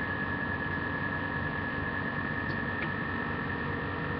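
Steady electrical hum and hiss with a thin, high steady whine, and no distinct handling sounds.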